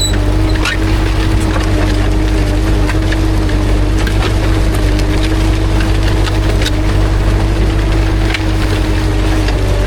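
Ursus C-360 tractor's three-cylinder diesel engine running steadily under load while pulling a disc harrow, with scattered cracks and clicks from the discs cutting through the soil.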